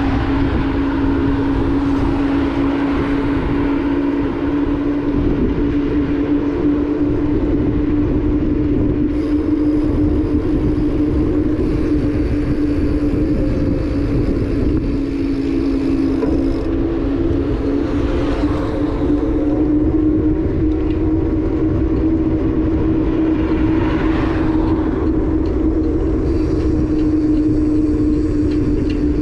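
Motorbike engine running at a steady cruising speed, one even drone, with wind rushing over the microphone; two brief swells of noise come about 18 and 24 seconds in.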